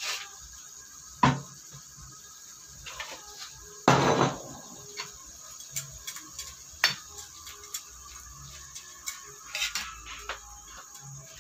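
Long metal spatula knocking and scraping against a metal wok while stirring noodles into boiling broth: a few separate sharp clacks, the longest and loudest about four seconds in.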